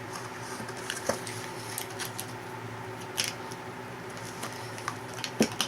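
Light clicks and taps of plastic Play-Doh toy pieces and tools being handled, with a sharper knock near the end, over a faint steady hum.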